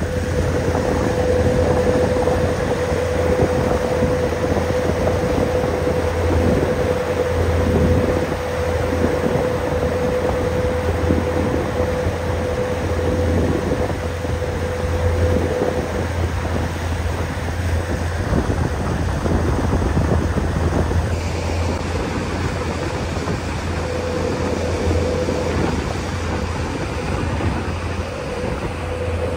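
Boat under way: its engine runs steadily with a low rumble and a steady hum, over an even rush of water and wind. The hum fades for a few seconds past the middle, then returns.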